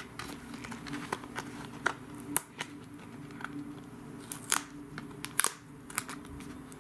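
Irregular sharp clicks and light crinkling from a plastic DVD case and its wrapping being handled and opened, over a faint steady low hum.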